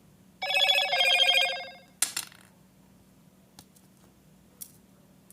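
Electronic two-note chime, about a second and a half long, like a phone ringtone or notification, followed by a couple of sharp clicks.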